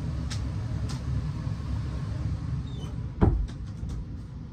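A steady low rumble of background noise, with a couple of light knocks in the first second and then one loud thump about three seconds in.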